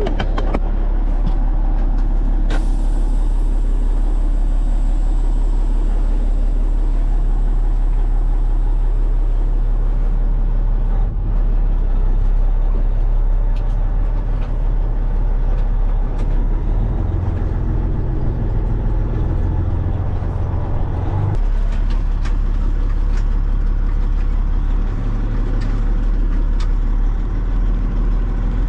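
Heavy truck engine running steadily. A hiss starts about two and a half seconds in and fades over several seconds, and the engine note changes between about seventeen and twenty-one seconds in, then drops back suddenly.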